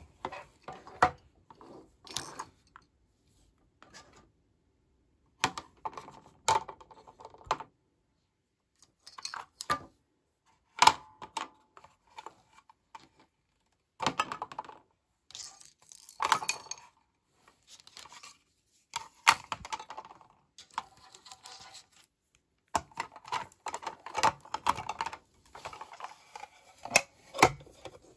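Hard plastic toy pieces clicking, knocking and rattling as they are handled and put into a plastic carry case. The sound comes in short bursts with silent gaps between, and there are several sharp taps near the end.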